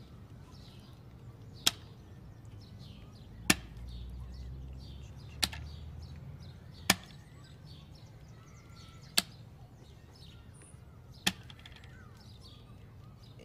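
Chess clock buttons pressed after each move in a fast game: six sharp clicks, about one every two seconds.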